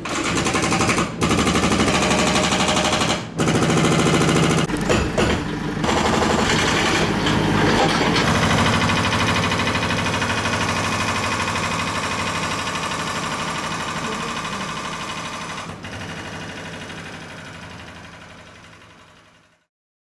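A Hilti power hammer drill running, with a fast, steady train of hammer blows. It breaks off briefly about one and three seconds in and stutters around five to six seconds, then runs on continuously, slowly fading before it stops near the end.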